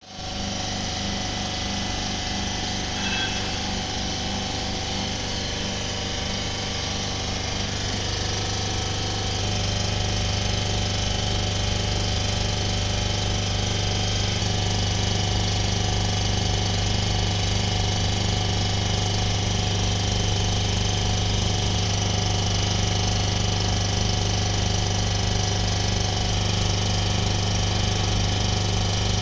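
Vacuum pump of a vacuum leak tester running with a steady, rapidly pulsing hum, a little louder from about ten seconds in.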